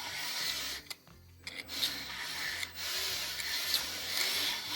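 Aerosol cleaner spray hissing into the brake wheel-cylinder parts: a short burst, a brief pause, then a longer spray.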